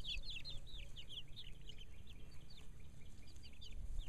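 Birds chirping: a steady run of short high calls, several a second, over a low rumble.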